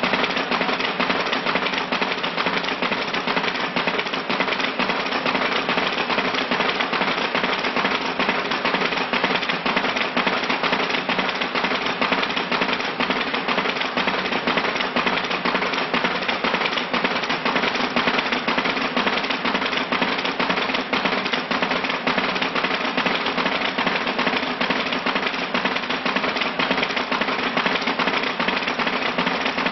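A dense, steady crackling rattle of very many rapid clicks, with no pauses and no change in level.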